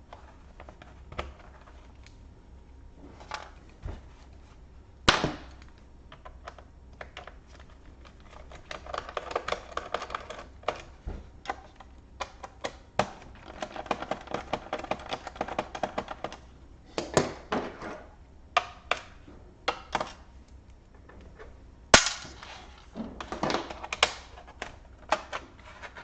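Clicks, taps and scraping from a small screwdriver and the plastic parts of a laptop being worked during disassembly. Two sharp snaps stand out, about five seconds in and near the end, and there is a denser stretch of rattling and scraping in the middle.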